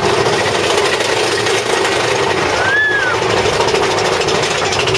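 Big Thunder Mountain Railroad mine-train roller coaster heard from on board: a loud, steady, fast rattle and rumble of the train running along its track. About three seconds in, a short high-pitched sound rises and falls.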